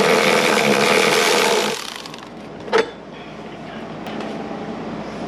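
A cordless power tool's motor runs at steady speed for under two seconds and then stops. A single sharp knock follows about a second later.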